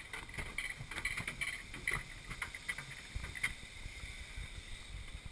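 Bobsled ride car rolling along its track, rattling with many small irregular clicks and knocks over a low rumble.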